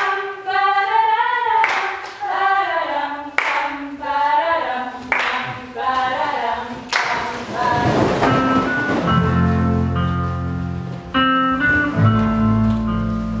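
Singing voices carrying a melody, punctuated by sharp hand claps about every second and a half to two seconds. About eight seconds in, instrumental music with a steady bass line comes in and takes over.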